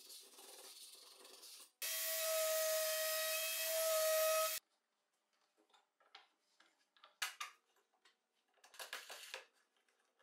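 A hand rubs a freshly glued laminate sheet down onto a plywood table. About two seconds in, a power tool runs steadily for about three seconds and cuts off suddenly. Then come scattered light clicks and knocks of wooden parts as the table is fitted to the disc sander.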